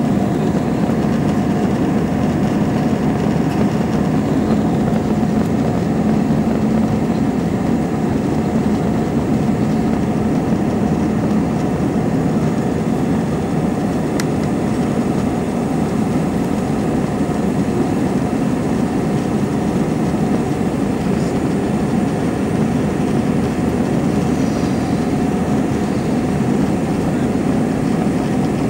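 Steady cabin noise inside an Airbus A320-family airliner climbing after takeoff: a low, even drone of jet engines and airflow with a faint steady hum. A single faint click comes about halfway.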